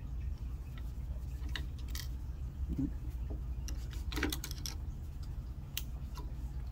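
Scattered light clicks and scrapes of a hand screwdriver working a screw into a mobility scooter's plastic tiller console, with a cluster of clicks about four seconds in, over a steady low hum.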